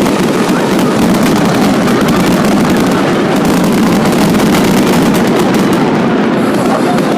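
Fireworks going off in a loud, dense barrage of rapid bangs and crackles.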